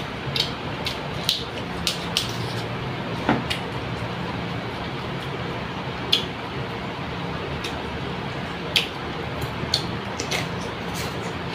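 Close-up eating sounds: chewing with lip smacks and scattered sharp, crisp clicks as bok choy leaves are torn apart and eaten, over a steady low hum.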